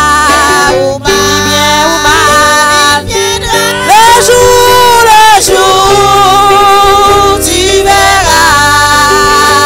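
Women singing a French gospel hymn in harmony over instrumental accompaniment, with a long held note about four seconds in.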